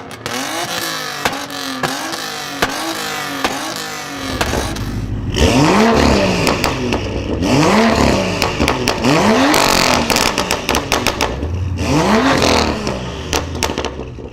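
Modified car exhaust as the engine is revved in quick repeated blips, the pitch rising and falling with each one, with sharp crackles and pops throughout. About four seconds in it changes to a deeper, louder engine revved harder in a few longer blips, still crackling.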